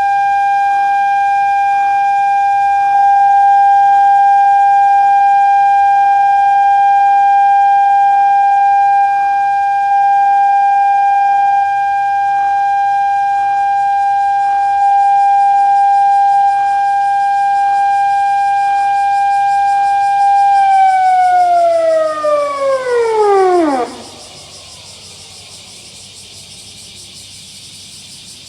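Electronic memorial siren from a municipal disaster-prevention radio loudspeaker, the 8:15 Hiroshima remembrance signal for a moment of silent prayer. It holds one steady, loud tone, then about 20 seconds in falls quickly in pitch and cuts off abruptly, an ending the uploader found strange.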